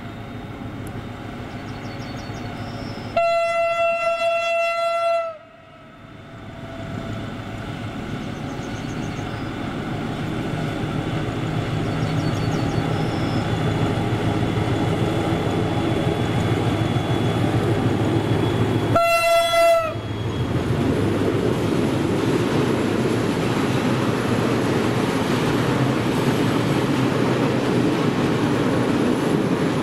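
Diesel freight locomotive sounding its horn twice, a two-second blast about three seconds in and a shorter one about two-thirds of the way through, while its engine rumble grows louder as it approaches. After the second blast the loaded aggregate wagons roll past with a steady rumble and clatter of wheels on the rails.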